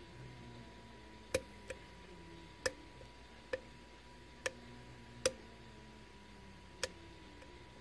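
Sharp metallic clicks from lock picking in a Sargent pin-tumbler lock cylinder: the pick and tension wrench working the pins, about seven clicks at uneven intervals.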